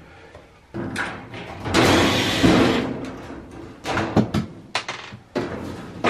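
Dryer's sheet-metal back panel being handled: a long scraping rush, then several knocks and clunks of metal.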